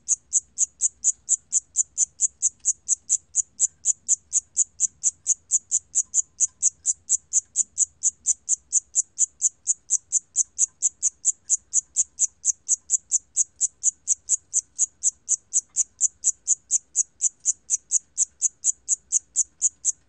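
Cricket (Korean 샴귀뚜라미, 'Siamese cricket') chirping at 28 °C: an even, high-pitched train of short chirps, about four a second.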